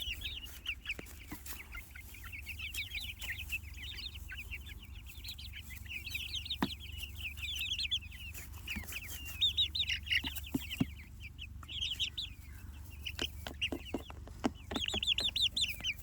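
A flock of young Jersey Giant meat chicks peeping continuously in many quick, high chirps, with a few sharp taps scattered through the second half.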